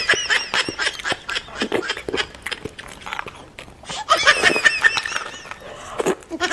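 Mukbang eating sounds: lip smacks and wet chewing clicks. Bursts of high-pitched giggling come near the start and again about four seconds in.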